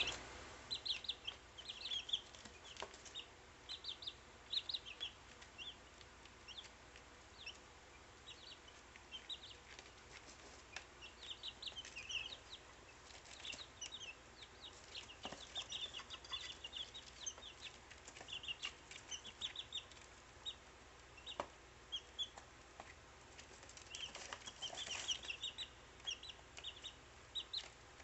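Week-old chicks peeping: many short, high chirps in quick runs, busiest in the middle and near the end, with a few faint taps among them.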